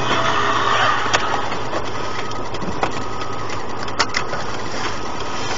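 Steady road and engine noise inside a moving car's cabin, with a few light clicks.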